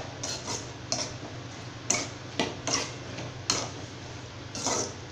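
Spatula scraping and knocking against a metal kadai as chopped tomatoes and small onions are stirred and sautéed, in about eight irregular strokes.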